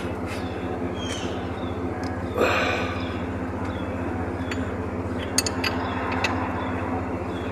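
A 19 mm wrench clinking on the alternator mounting bolts as they are tightened: a few sharp metal clicks a little past halfway, and a short burst of noise about two and a half seconds in, over a steady low mechanical hum.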